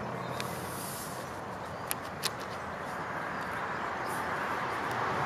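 Steady outdoor background noise that slowly grows louder toward the end, with a brief hiss about half a second in and two light clicks a little after two seconds.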